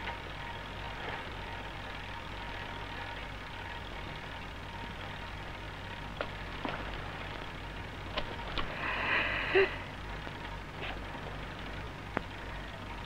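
Steady hiss and low hum of an old film soundtrack. In the second half come a few faint clicks and knocks, and a short rustling noise about nine seconds in.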